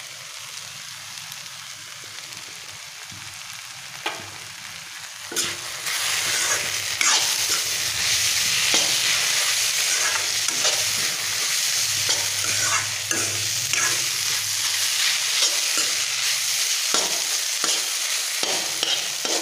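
Chow mein noodles sizzling as they are stir-fried in a hot metal wok, with a steel spatula stirring and scraping them and tapping against the pan. The sizzle grows louder about five seconds in and stays up, with frequent scrapes and taps.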